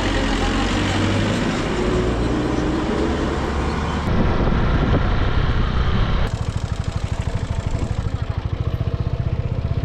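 Motorcycle engine running under way, with heavy wind rush over it. About six seconds in, the wind noise drops away suddenly and the engine's low, even pulsing comes through clearly.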